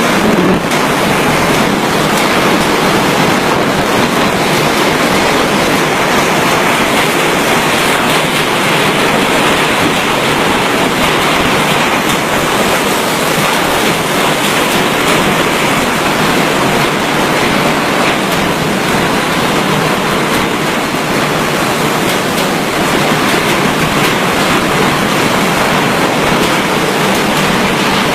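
Typhoon storm noise: wind and heavy rain as a loud, steady rushing noise with no let-up.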